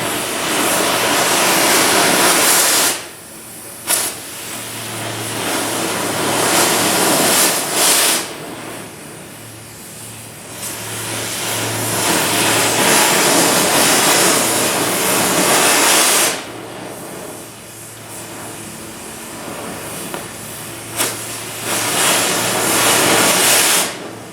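Oxy-fuel cutting torch hissing and roaring as it cuts rusted steel C-channel. The sound swells loud for several seconds about four times and drops back to a quieter hiss in between. A steady low hum runs underneath.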